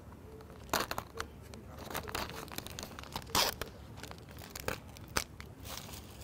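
Thin plastic packaging crinkling and crackling in a handful of short bursts, loudest about three and a half seconds in, as a plastic takeout container is unwrapped and opened.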